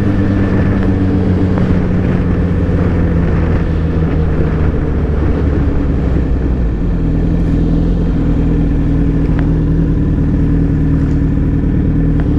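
Motorcycle engine running steadily while being ridden on the road, heard from the rider's own bike, its engine note shifting a little about seven seconds in.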